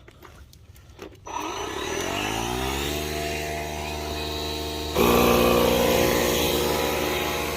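A DeWalt cordless tire inflator's motor starts about a second in and spins up, rising in pitch to a steady hum as it pumps a flat tire. About five seconds in, a second cordless inflator starts up, louder.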